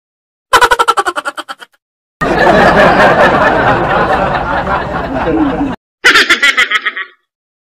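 Edited-in comic laughing sound effects: a quick snickering laugh about half a second in, a longer dense stretch of sound from about two to six seconds, and another short snicker near the end, each cut off into dead silence.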